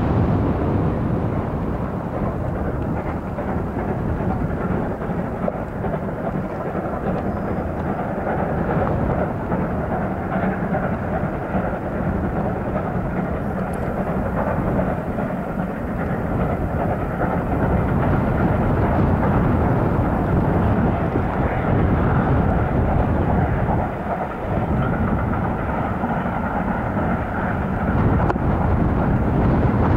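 Two steam locomotives double-heading a passenger train, working hard at a distance, under a heavy low rumble of strong wind buffeting the microphone.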